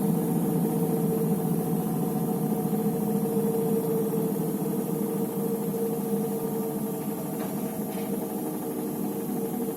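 Electrolux EWT 1377 VIW top-loading washing machine running with a steady motor hum and vibration, easing slightly quieter over the last few seconds. This is the machine that fails to end its cycle and keeps on spinning.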